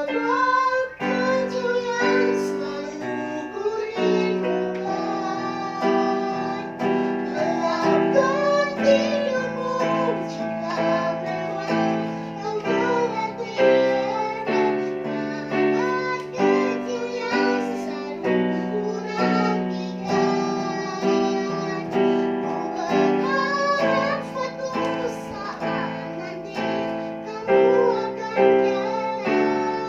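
Piano playing steady chords while a child sings a wavering melody over it.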